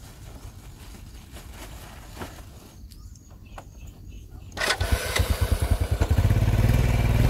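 Small step-through motorbike engine, running low at first, then revved up sharply about halfway through and held at high revs.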